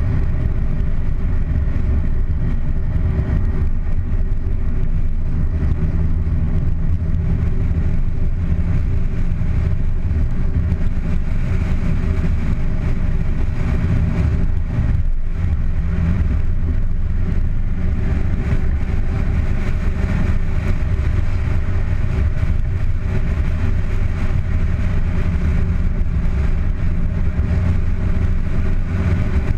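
Car engine running steadily with tyre and road noise, heard from outside on the bonnet as a constant low drone with a brief slight lull about halfway through.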